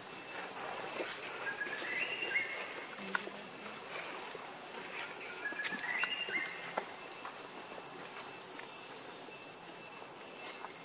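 Forest insects droning steadily at several high pitches, with two short stepped rising animal calls, about two and six seconds in, and light scattered clicks and taps.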